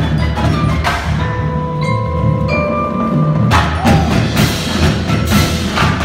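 Indoor percussion ensemble playing: mallet keyboards such as marimba and vibraphone ring with sustained bell-like tones over a low held bass. Sharp drum and cymbal hits come about once a second from about three and a half seconds in.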